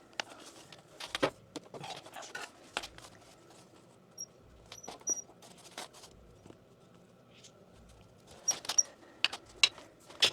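Irregular light clicks, taps and knocks of hands handling PEX pipe, fittings and tools, with a few faint high squeaks about halfway and a busier run of sharper knocks near the end.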